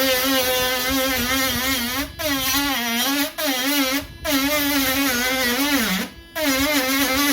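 Dremel rotary tool with a sanding-drum tip whining as it grinds into a plastic laptop palmrest. The pitch wavers under load and sags before it drops out briefly several times.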